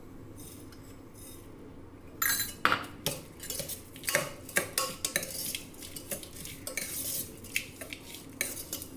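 A steel spoon clinking and scraping against a stainless steel bowl as a wet bhel mixture is stirred, in quick, irregular strokes starting about two seconds in.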